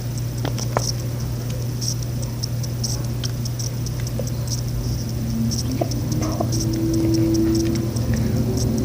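Thick hair conditioner being squeezed out of a plastic bottle into a bowl: irregular soft wet ticks and pattering over a steady low hum.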